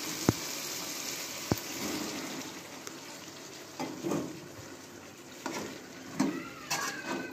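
Food sizzling in a pot, with two sharp knocks early on. From about four seconds in, a metal spoon stirs boiled chickpeas into the gravy, scraping against the pot in several short strokes.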